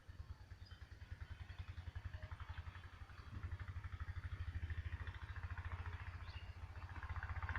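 An engine running with a fast, even putter that grows louder, as if coming closer. A few faint bird chirps sound over it.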